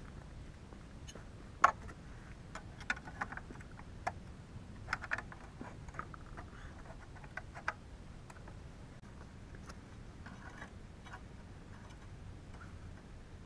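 Scattered clinks and taps of metal tools and parts being handled on a snowblower frame, the sharpest about one and a half seconds in, thinning out after about eight seconds.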